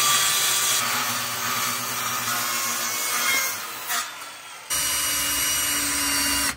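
Handheld circular saw running and cutting through a sheet of board; the saw winds down about four seconds in. Then a cordless drill runs steadily.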